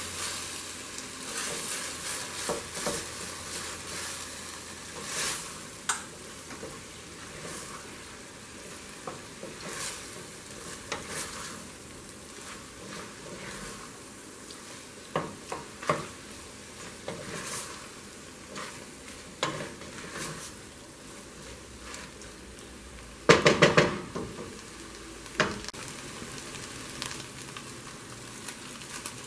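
Wooden spoon stirring meat, green peas and tomato paste in a stainless steel pot while the food sizzles, with scattered scrapes and knocks of the spoon against the pot. A loud, rapid clatter of knocks comes a little over three-quarters of the way through.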